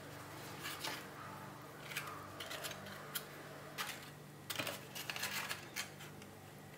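Faint rustling and scattered soft clicks of paper muffin cases being handled while thin cocoa batter is poured into them from a small steel bowl.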